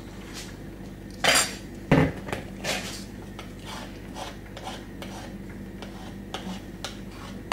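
A spoon knocking twice against a mixing bowl, then scraping muffin batter down the bowl's sides in short repeated strokes.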